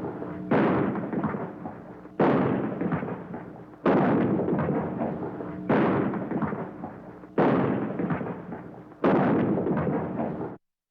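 Shotgun firing six shots, a little under two seconds apart, each followed by a long fading ring-off echo. The last tail cuts off suddenly near the end.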